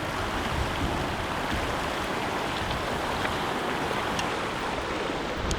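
Steady rush of river water, with wind buffeting the microphone; a couple of faint ticks near the end.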